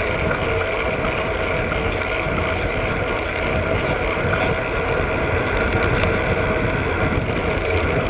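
Koga Kimera road bike rolling along rough asphalt, heard from a camera mounted under the saddle: a steady rumble of tyre and road noise with a constant hum.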